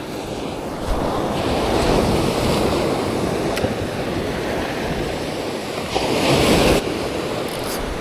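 Ocean surf breaking and washing up a sandy beach, with wind buffeting the microphone. The rush swells after about a second, and a louder surge near the end stops abruptly.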